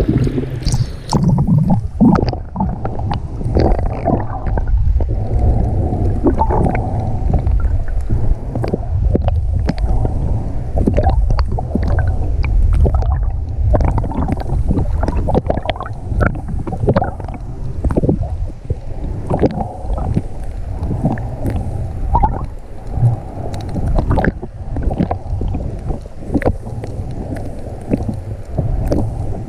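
Muffled underwater sound picked up by a GoPro on a full-face snorkel mask: a steady low rumble of moving water with scattered clicks and crackles throughout. It begins with a brief splash as the mask goes under.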